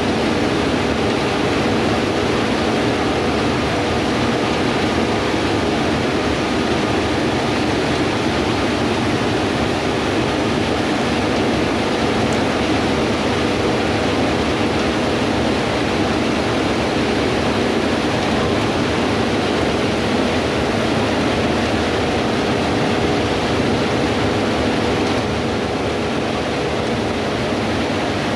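Harvest machinery running steadily in a wheat field: a loud, even rush with a low steady hum underneath, easing slightly near the end.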